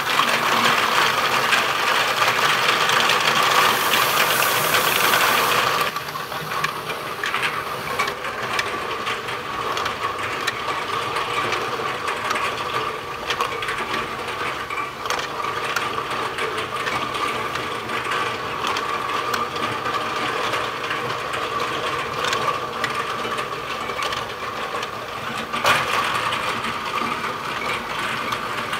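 A bottle unscrambler running: small flat bottles rattle and clink against each other and the stainless steel bowl on its rotating turntable, over a steady whine. About six seconds in the sound drops to a quieter steady mechanical rattle as the star wheel feeds bottles onto the conveyor, with one sharp knock near the end.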